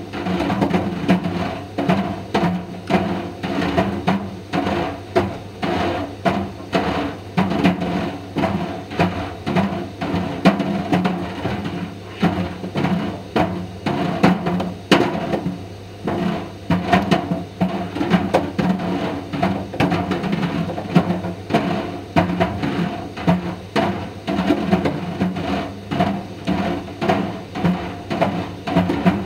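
Indesit IDV 65 tumble dryer running, a steady drum hum under irregular knocking, a few knocks a second, as plastic Mister Steamy dryer balls tumble and strike the drum.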